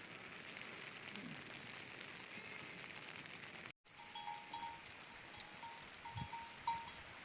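Steady rain hiss, then after a cut small bells on grazing sheep ringing on and off in irregular clinks.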